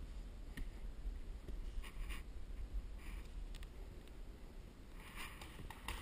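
Faint rustling and light scraping of hands handling tools, a few short scratchy noises with more of them near the end, over a steady low rumble.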